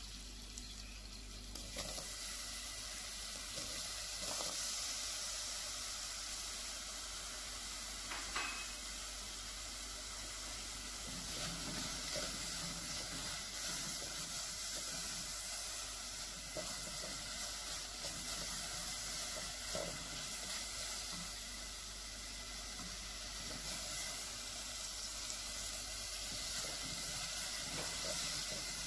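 Diced green apple sizzling in a hot stainless steel pot, a steady hiss, with the spatula stirring and lightly knocking against the pot now and then.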